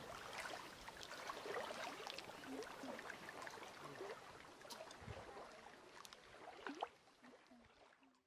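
Small ripples of lake water lapping and trickling over a pebble shore: a soft, even wash of water dotted with little drips and plops, fading out near the end.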